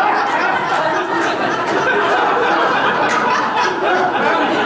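Audience laughing and chuckling, mixed with murmured chatter.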